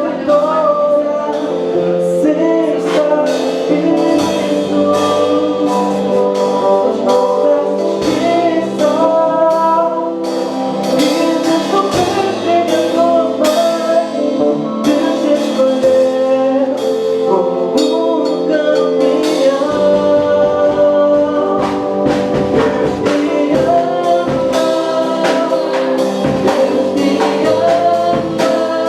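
A band's song playing, with singing over a steady beat.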